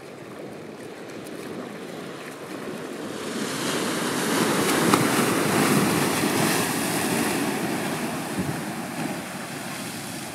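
Ocean wave surging and breaking into whitewater, swelling up about three seconds in, loudest midway, then easing off into a steady wash of surf.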